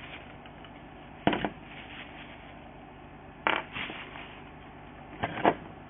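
Three short bursts of rustling and clattering from handling the new bicycle derailleur and its packaging, about a second in, midway and near the end.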